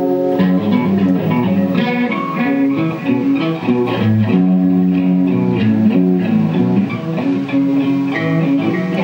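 Guitar music: a held chord gives way, about half a second in, to a melody of plucked notes that keeps changing pitch.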